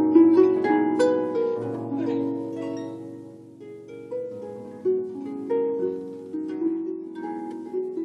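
Concert harp playing an instrumental passage of plucked notes and chords, each ringing and fading. A full run of notes at the start dies away, and new plucked notes follow from about five seconds in.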